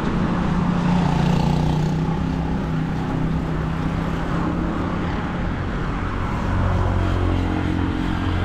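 Road traffic: motor vehicle engines running along the street, a steady hum with a low engine drone that grows stronger near the end.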